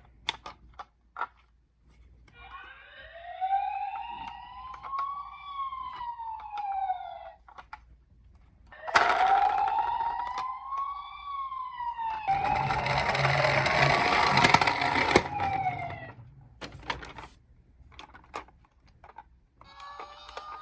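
Toy emergency vehicle's electronic siren wailing in two slow rise-and-fall sweeps, the second overlaid by a few seconds of loud hissing noise. Scattered clicks sound between the sweeps, and another siren tone starts near the end.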